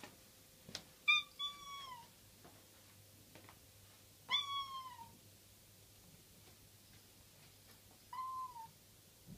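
A domestic cat meowing about four times, each meow dropping in pitch at its end, the one about four seconds in the longest and loudest. A few light clicks fall between the meows.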